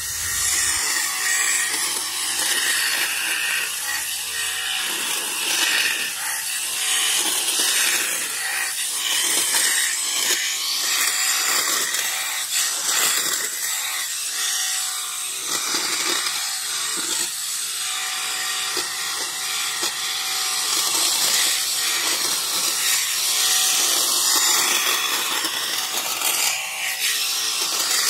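Battery-powered electric hedge trimmer running, its reciprocating blades shearing through tea bush shoots: a steady rasping noise dotted with many short crackles of cut leaves and stems.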